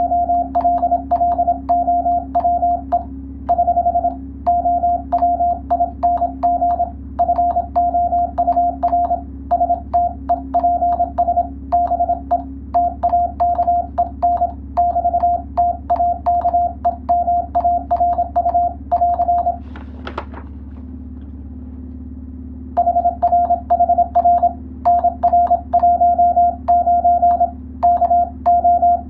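Morse code sent as a keyed tone of about 700 Hz, dots and dashes at a brisk, even pace, with a click at each keying. About two-thirds of the way through the sending stops for some three seconds, with one louder click, then resumes.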